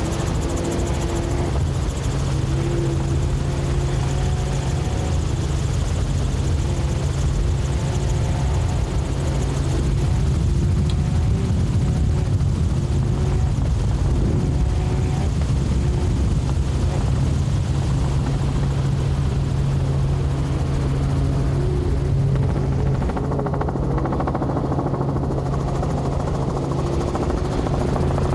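Helicopter's engine and rotor running steadily, heard from on board: a constant low drone with wavering higher tones over it.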